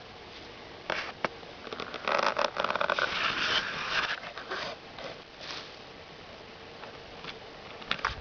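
Wombat digging in dry soil, its claws scratching and raking the earth. Two sharp scrapes come about a second in, then a dense run of rapid scratching for a couple of seconds, easing to scattered scrapes, with a few more near the end.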